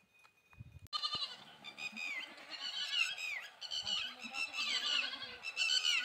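Repeated high-pitched animal calls start suddenly about a second in, one after another roughly every second, many falling in pitch at the end.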